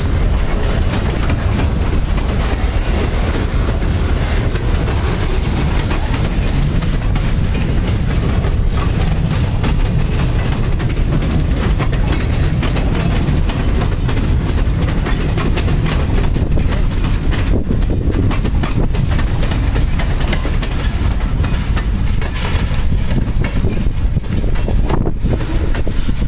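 Freight train rolling past at close range: a steady low rumble of the cars with wheels clacking over rail joints throughout.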